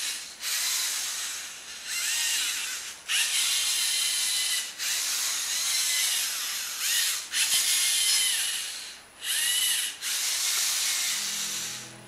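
Lego NXT servo motors driving a small robot, whirring with gear noise in a string of bursts of a second or two each, their pitch rising and falling as the speed changes.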